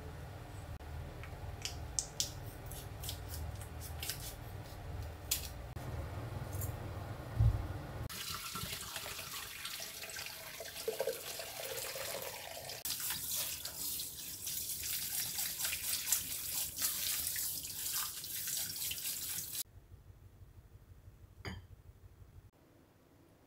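A kitchen tap running hard onto boiled somen noodles in a stainless-steel colander in the sink, from about eight seconds in until it shuts off suddenly near the end. Before it there is a low steady hum with a few sharp clicks as kitchen scissors cut. After it there are only faint small clicks.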